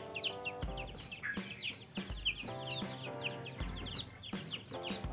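Background music with a slow, steady beat, with many short high chirps over it. Chickens clucking can be heard in the background.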